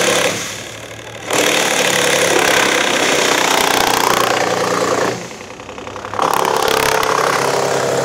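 Wood chipper running and chipping a Prosopis juliflora branch. The loud machine noise drops away briefly twice, about a second in and again about five seconds in, then comes back at full strength.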